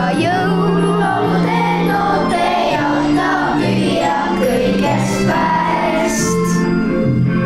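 A group of children singing a song together, with instrumental accompaniment carrying a steady, stepping bass line.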